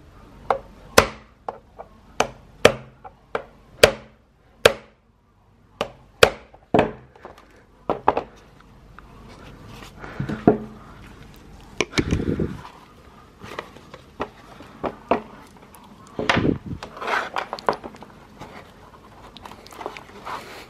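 A series of sharp, irregular knocks as the axle bolt of a stroller wheel is driven out of the hub with a screwdriver used as a punch, about one or two a second for the first eight seconds. After that comes handling noise of the wheel and loose parts on cardboard, with a dull thump about twelve seconds in.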